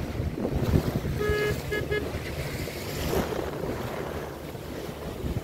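Water rushing past the hull of a moving boat, with wind buffeting the microphone over a low rumble from the boat. About a second and a half in, a short steady beep-like tone sounds, then two quicker ones.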